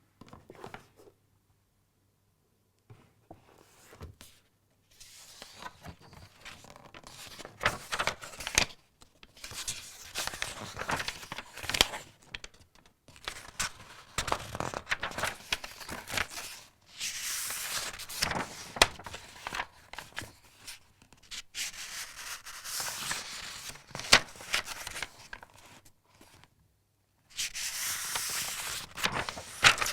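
Book paper being handled: rustling, rubbing noise in irregular bursts with sharp clicks, broken by short silent pauses near the start and shortly before the end.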